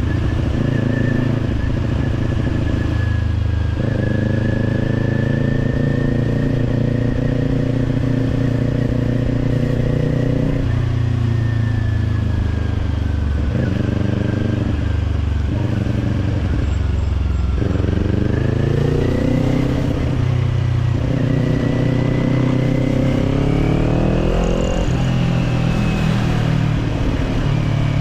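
Kawasaki Z400's parallel-twin engine running through an Orion Katya slip-on exhaust while riding, the engine note coming and going as the throttle opens and closes. Its pitch climbs twice in the second half as the bike accelerates, over a steady low rumble.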